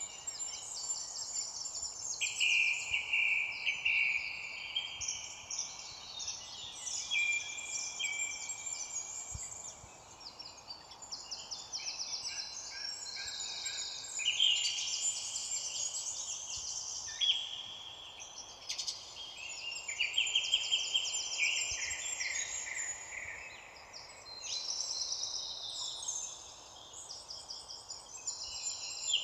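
Several birds singing at once: a dense chorus of overlapping trills and chirps, over a steady background hiss.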